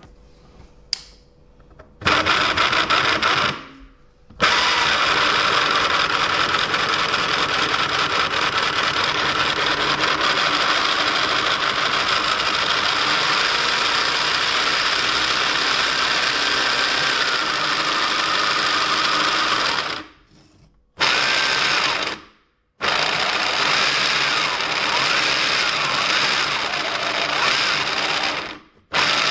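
A 3D-printed 8:1 gearbox driven by a 775 DC motor, running dry with no grease: an unbelievably loud gear whine and grinding that vibrates hard and does not run smoothly. It starts about two seconds in and cuts out and restarts a few times. The noise comes from the dry plastic gears rubbing, friction bad enough to wear out the input gear.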